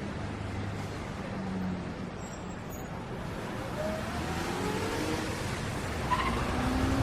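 Street traffic noise with a steady road rumble; in the second half a vehicle engine rises in pitch as it accelerates.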